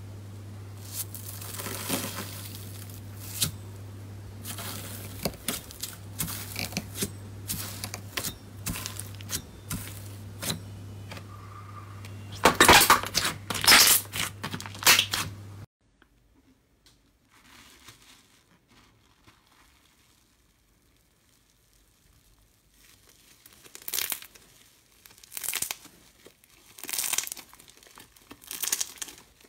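Metallic foil sheets on slime crinkling and crackling as they are pressed and squeezed, over a steady low hum, with the loudest crackles a little past halfway. After an abrupt cut, glossy slime being stretched gives a much quieter sound, then a run of short crackly bursts about every second and a half near the end.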